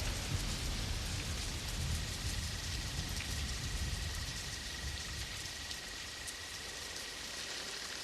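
Steady rain falling, with a low thunder rumble that dies away over the first few seconds. A faint steady high tone comes in about two seconds in.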